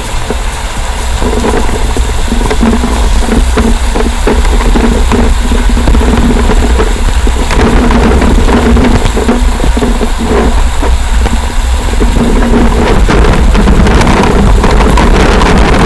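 Camper van on the move: a steady low rumble of engine and road noise, with a droning tone that fades in and out.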